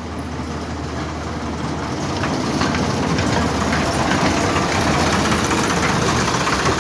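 Miniature-railway diesel locomotive in steam outline running as it draws its train past, growing louder as it comes close, with the carriage wheels clicking over the rail joints.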